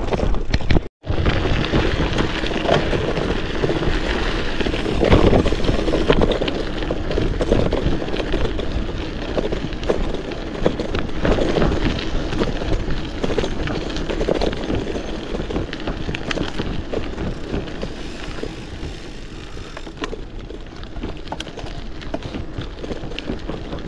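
Kross Esker 2.0 gravel bike being ridden: continuous tyre and riding noise with a low rumble and fine rattle, broken once by a brief gap about a second in.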